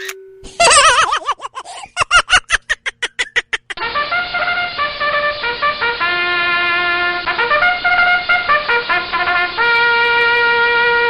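Comedy sound effects: a warbling, falling tone, then a run of rapid repeated blips, then a short tune of held notes on a trumpet-like instrument.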